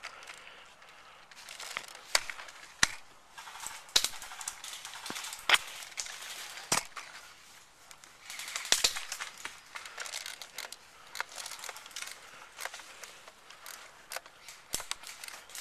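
Airsoft guns firing single shots: sharp cracks at irregular intervals, about a dozen in all, with hissy rustling noise between them.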